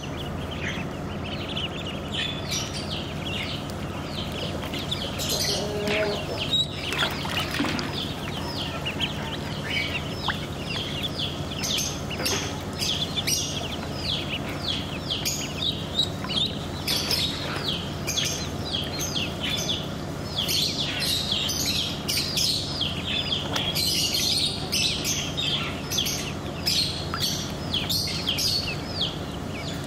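Ducklings peeping: a busy, continuous run of short high peeps, each falling in pitch, over a steady low hum.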